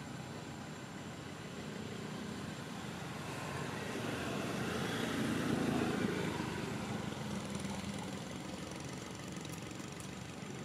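A motor vehicle engine running, growing louder to a peak about six seconds in and then fading.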